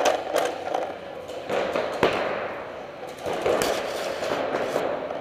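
Paintball markers firing in scattered sharp pops, a few at a time at irregular intervals, over a steady background noise.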